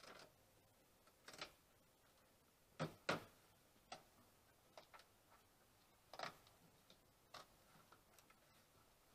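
Faint, irregular clicks and taps of plastic as hands work the Jeep Grand Cherokee WJ's cowl panel and its push-in retainers. A close pair of sharper clicks about three seconds in is the loudest.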